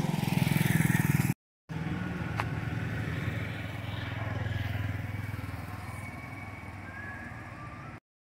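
A motor vehicle's engine running steadily with a low hum, cut off by brief total dropouts about a second and a half in and again near the end.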